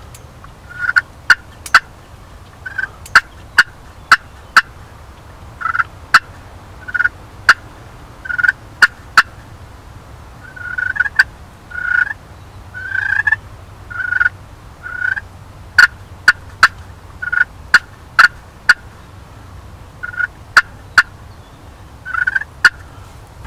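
Turkey calling: a long, irregular run of short yelps mixed with sharp clucks.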